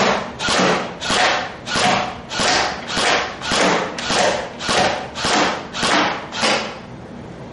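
G&G M4-A1 airsoft electric rifle firing about a dozen single shots in a steady rhythm, a little under two a second, then stopping near the end.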